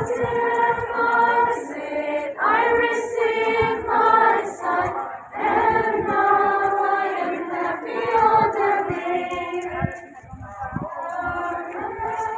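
A group of women's voices, nuns singing a hymn together in unison, in sustained phrases a few seconds long with short breaks between them.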